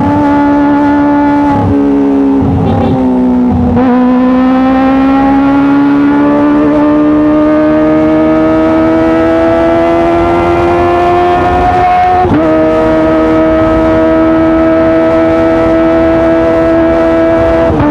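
Kawasaki ZX-25R's 250 cc inline-four running at high revs through an Arrow titanium full-system exhaust. The engine note drops in quick steps in the first four seconds, then climbs slowly for about eight seconds and steps down again at about 12 seconds and near the end, as at upshifts.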